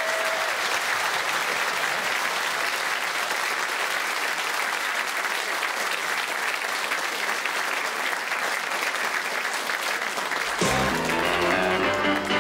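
Theatre audience applauding steadily. About ten seconds in, closing theme music starts over the clapping.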